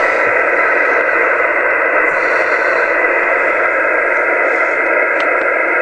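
Steady receiver hiss from a 2-meter SSB transceiver's speaker, cut off above and below the voice range, with several faint steady tones in it, as the radio sits on the 2-meter FT8 frequency.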